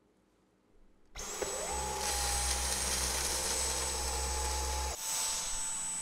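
Dyson V11 Torque Drive cordless vacuum switching on abruptly about a second in. Its motor spins up with a rising tone to a steady high whine over a low hum. About five seconds in the low hum drops away and it runs on with more hiss.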